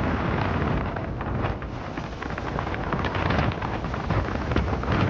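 Wind buffeting the microphone on a moving boat, a heavy low rumble over the rush and splash of water along the hull, with many short gusty crackles.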